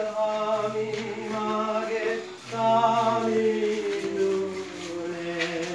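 A group of voices singing a slow hymn without accompaniment, in long held notes, with a short breath break about two and a half seconds in.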